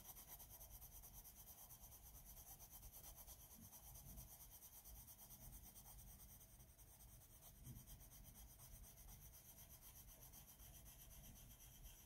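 Faint scratching of a soft coloured pencil on paper, laid on lightly in a thin layer without pressing, over a steady low hum.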